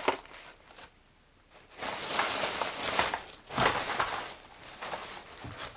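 A thin plastic shopping bag rustling and crinkling as a hand rummages inside it, starting about a second and a half in.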